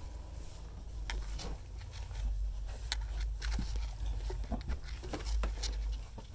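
Footsteps climbing carpeted stairs: scattered soft knocks and clicks of feet and hands on the treads, over a steady low rumble.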